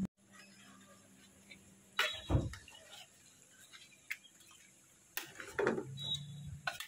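Metal spatula knocking and scraping against a stainless-steel pot while chicken pieces in spice paste are stirred: a few separate clinks and knocks, the loudest about two seconds in and again near the end.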